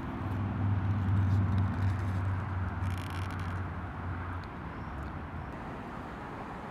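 Low steady engine rumble of a nearby road vehicle, fading away after about four and a half seconds, over outdoor street noise. A short faint scrape about three seconds in as a plastic lid is pulled off a foam sauce cup.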